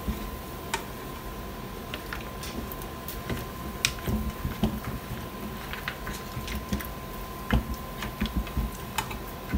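A bare hand mixing boiled pork trotter pieces in a soy sauce and Sprite marinade in a pan: irregular wet squelches and small clicks of meat and bone knocking against the pan. A faint steady high tone runs underneath.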